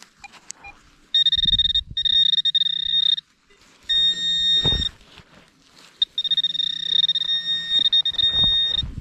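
Metal detector sounding its target tone: a steady high beep held three times, about two seconds, one second and three seconds long, as the coil passes over buried metal. A couple of dull thumps come in between.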